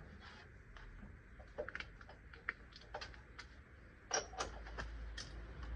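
Hand tools clicking and tapping against metal parts in irregular light knocks, with a louder clank about four seconds in.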